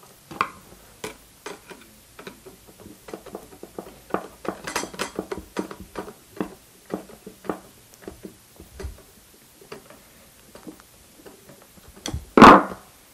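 Scattered metal clicks and taps of a screwdriver working a screw into a metal light-stand leg clamp, with one loud knock near the end.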